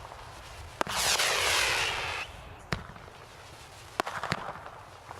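Consumer fireworks going off: a sharp bang about a second in, followed by a loud hissing burst lasting just over a second. Then a few more single sharp cracks follow, two of them close together near the end.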